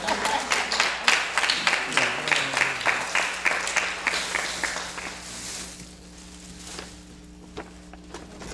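A congregation clapping in a steady rhythm, about four claps a second, which dies away about five and a half seconds in.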